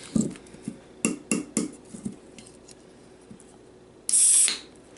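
Aluminium can of carbonated strawberry kiwi drink being handled, with a few light clicks as fingers work the pull tab. About four seconds in, the tab cracks it open with a short, loud hiss of escaping carbonation.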